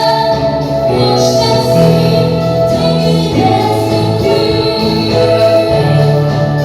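Music: a slow song with held notes over a bass line that changes every second or so.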